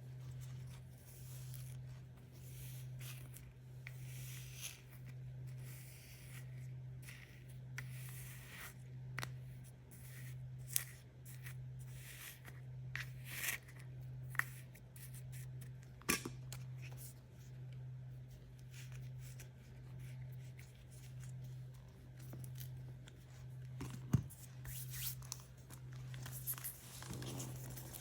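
Surprise-toy packaging being opened by hand: plastic wrapping tearing and rustling, with scattered sharp clicks and snaps. A low hum swells and fades about once a second underneath.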